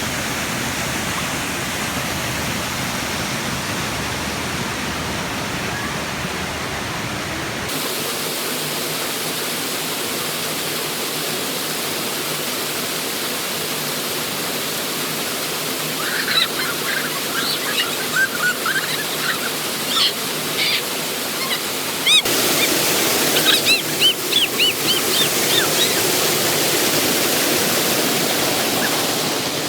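A 20-foot waterfall: a steady, even rush of falling water. Short, high, chirping calls sound over it from about halfway through until near the end.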